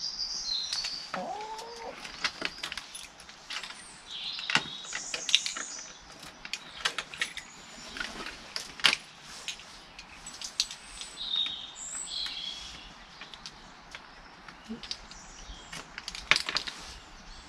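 Backyard poultry at close range: short high chirps and calls from the birds, with one lower call about a second in. Many sharp clicks and rattles are scattered throughout.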